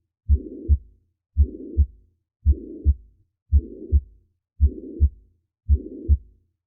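Recorded heartbeat through a stethoscope in a slow, steady rhythm of about one beat a second, each beat a pair of low thumps (the first and second heart sounds) with a rough whooshing murmur filling the gap between them, a systolic murmur.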